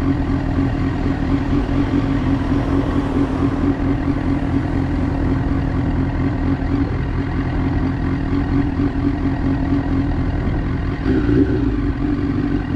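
Honda Fireblade's inline-four engine idling steadily while the bike stands in traffic.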